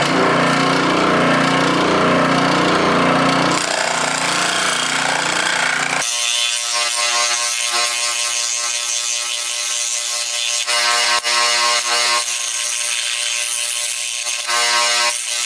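Delta 15-inch scroll saw running, its blade cutting through thin plywood with a paper template glued on. A steady mechanical running sound whose tone shifts abruptly about 3.5 and 6 seconds in.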